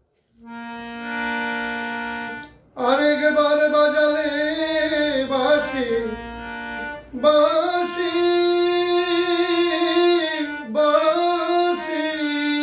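Harmonium holding a steady chord, then a man singing a Bengali song over the harmonium from about three seconds in. His voice glides between notes in phrases separated by brief breaths.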